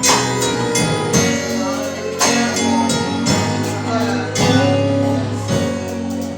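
Gospel song intro: band music with a steady beat and a strong hit about once a second, before the vocal comes in.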